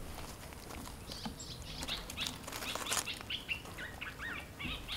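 Faint, scattered high-pitched animal chirps, with a few short falling squeaks about four seconds in.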